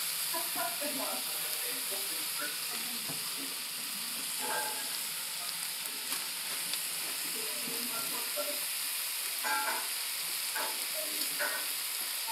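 Onions, peppers and citrus wedges sizzling steadily in a hot enameled Dutch oven, under a piece of pork.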